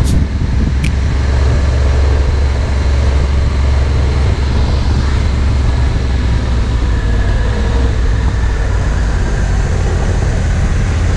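Motorcycle riding along at a steady pace: a constant low engine rumble under road and wind noise, with a single sharp click about a second in.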